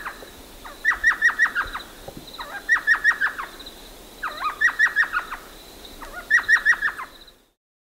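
Elf owl calling: groups of five or six quick, high yelping notes, repeated about every two seconds.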